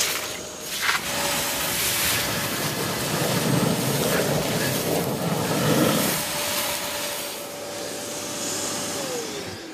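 Kärcher wet-and-dry vacuum cleaner running with a steady motor whine. For a few seconds in the middle it slurps and gurgles as it sucks up wet sludge. Near the end the motor is switched off and its whine falls as it winds down.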